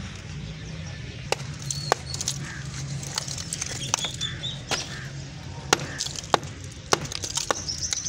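Several sharp, irregular knocks and clinks of brick and mortar rubble being struck and broken up, with birds chirping now and then and a low steady hum underneath.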